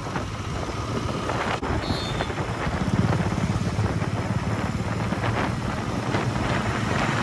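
Wind rushing over the microphone of a moving motorcycle, with the engine running steadily underneath.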